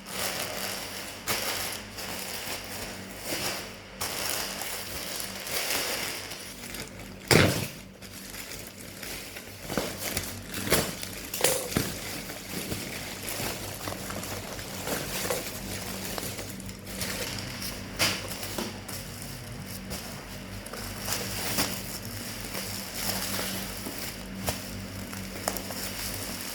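A package being handled and opened: rustling and crinkling with scattered knocks and clicks, and one sharp knock about seven seconds in, over a steady low hum.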